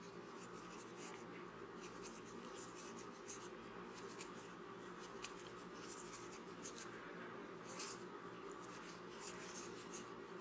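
Faint scratchy rubbing and small irregular ticks of a metal crochet hook catching and pulling yarn through stitches, over a low steady hum.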